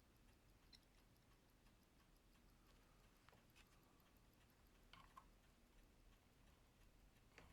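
Near silence, with a few faint light clicks of small watch parts and tools being handled, two close together about five seconds in, over a faint, fast, even high ticking.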